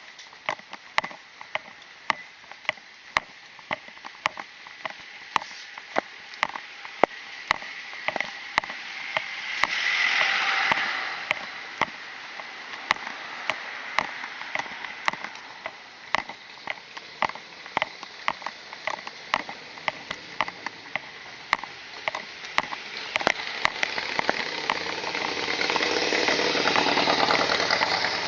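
Footsteps of a person walking, about two steps a second, over steady outdoor hiss. Vehicles pass twice, swelling up and fading around ten seconds in and again near the end.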